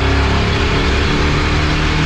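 Race car engines running steadily at speed, several held engine notes at once.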